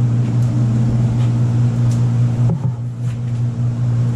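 Steady low mechanical hum of a machine running at full speed, with a soft knock about halfway through.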